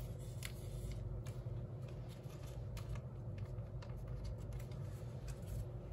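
Faint rustling and small scattered clicks of a trading card being handled and slid into a plastic sleeve, over a steady low room hum.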